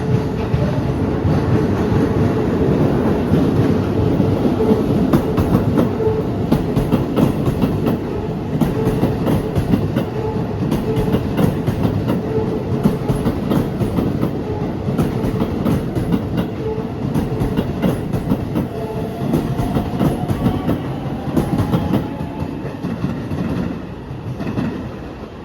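Keisei 3050-series electric train passing over a level crossing, its wheels clattering over the rail joints, with the crossing alarm's repeating tone ringing. The clatter fades near the end as the train passes.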